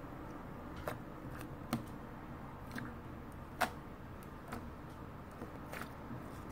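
Scattered small clicks and taps, about seven of them at irregular intervals, the loudest about three and a half seconds in, over a low steady hiss.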